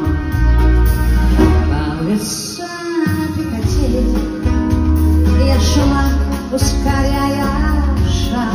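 Live pop band with saxophone, keyboards, guitars and drums playing on stage, heard from the audience seats. The bass drops out for about a second a couple of seconds in, then the full band comes back.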